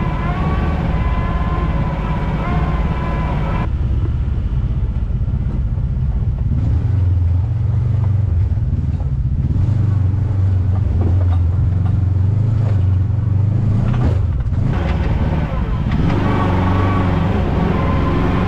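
Side-by-side UTV engine running, a steady low drone that grows stronger in the middle of the stretch.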